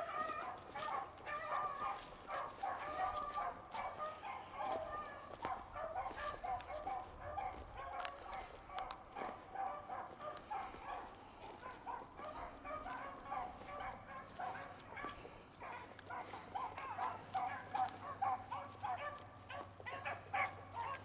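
Beagles baying continuously on a rabbit's trail, several voices overlapping in a running chorus of short, repeated bawls. The chorus fades a little past the middle and swells again near the end.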